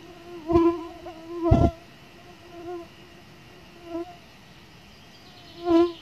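A mosquito whining as it flies around the microphone. Its steady hum swells several times as it passes close, loudest twice in the first two seconds and again near the end.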